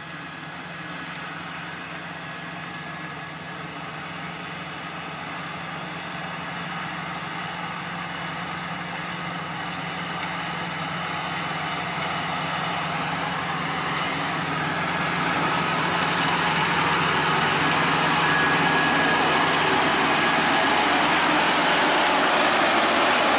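Crown Sumo rice combine harvester running as it harvests: a steady engine drone with a hiss above it, growing steadily louder as the machine comes closer.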